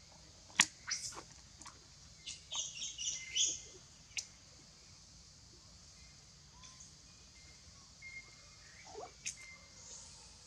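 Bird chirping in a quick run of high notes about two to three and a half seconds in, with scattered sharp clicks and taps, the loudest a single click just over half a second in.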